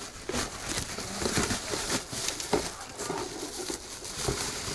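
Handling noises from a single-barrel carburetor and its parts: a string of irregular clicks, light knocks and rustles as the carburetor is turned over and worked on by hand.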